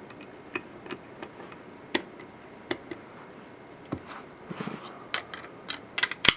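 Small irregular metal clicks and taps as a screwdriver tightens the cover-plate screw on an AR-7 rifle's receiver, about one every half second. Just after six seconds in comes a quick cluster of louder, sharper metallic clicks.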